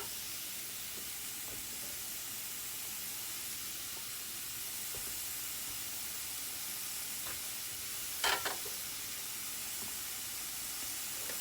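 Mushrooms and onion sizzling steadily in a frying pan with a little peanut oil. A brief clatter about eight seconds in.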